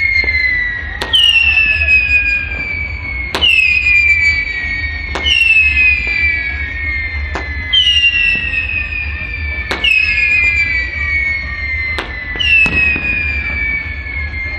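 Whistle fireworks going off one after another, about every two seconds. Each starts with a sharp pop, followed by a shrill whistle that slides slowly down in pitch over about two seconds, and the whistles sometimes overlap.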